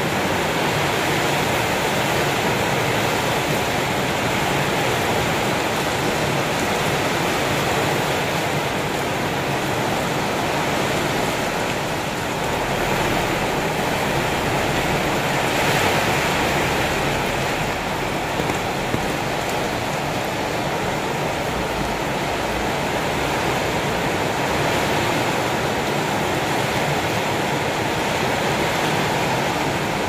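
Heavy rain pouring down steadily in a dense, even hiss, swelling briefly about halfway through.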